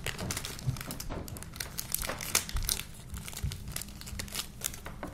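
Foil wrapper of a Pokémon trading-card booster pack crinkling and tearing as it is opened by hand, a rapid run of sharp crackles that thins out near the end.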